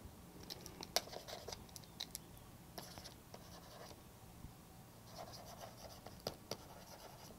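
Stylus writing on a tablet screen: faint scratchy pen strokes and light taps in two spells, with a short lull in between.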